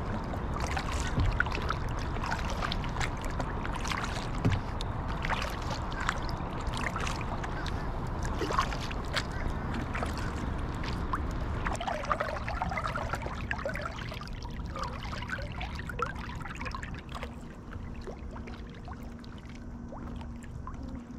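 Kayak paddling: paddle blades dipping and water splashing and dripping in many small irregular splashes.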